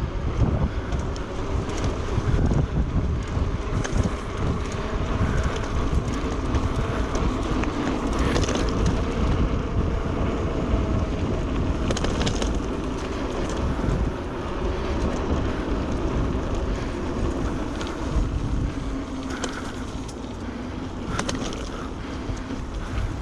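Wind buffeting the microphone over the steady rumble and rattle of a Carrera Vengeance mountain bike being ridden along a trail, with scattered short clatters.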